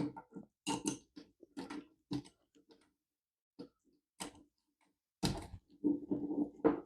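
Irregular clicks, knocks and rattles from a small folding camp table being handled and turned over, with a quiet stretch about halfway through.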